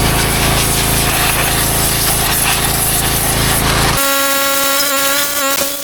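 Loud, steady hiss of a pressure washer spraying over the drone of its engine, used to clean off leaked hydraulic oil. About four seconds in it cuts off abruptly and a steady, buzzy hum takes its place.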